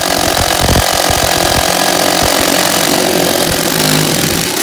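Cordless drill running steadily as a spade bit bores an exploratory hole through a thin plywood subfloor, throwing out wood chips.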